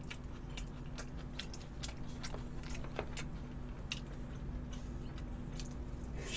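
A man chewing food close to the microphone: irregular wet mouth clicks and smacks, a few a second, over a faint steady hum.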